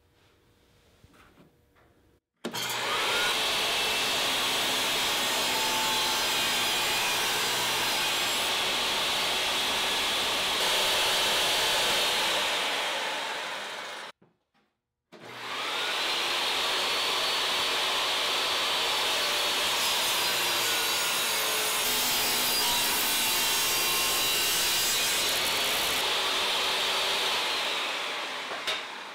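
SawStop jobsite table saw running and ripping strips off a wooden board. There are two long, steady cuts of about twelve seconds each, separated by a second of silence. Each starts abruptly and tails off near its end.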